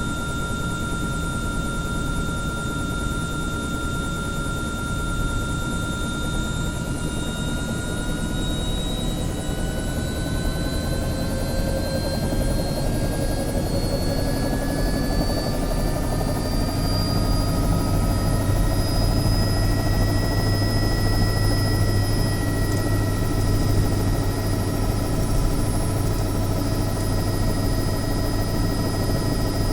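Helicopter engine and rotor running, with a whine that climbs slowly in pitch over the first half and then holds steady. A strong low hum builds about halfway through, and the whole gets slightly louder, as the engine winds up.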